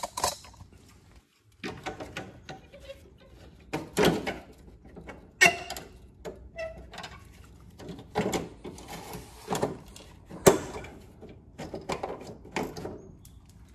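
Cut-down plastic front trim piece being test-fitted on a Ford F-150: irregular plastic knocks and clunks as it is handled and pushed into place. The sharpest knock is about ten seconds in.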